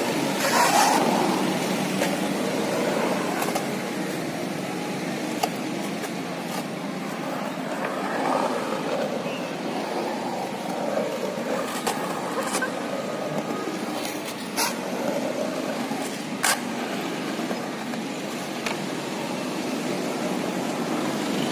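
Steady rumble of vehicle engines and traffic, with a few sharp clacks of a skateboard on concrete scattered through it.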